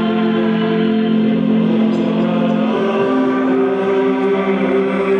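A team anthem sung by a group of voices in long held notes, moving to new notes about three seconds in.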